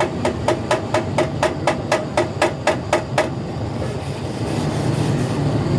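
A hammer tapping quickly on the metal of a truck radiator being overhauled, about four sharp strikes a second, each with a short ring. The tapping stops a little past halfway, leaving a low steady hum.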